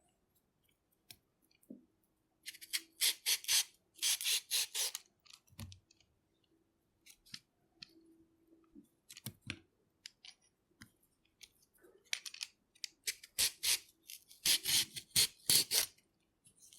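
Hand vegetable peeler scraping down a carrot in quick crisp strokes, about three a second, coming in runs of several strokes with short pauses between.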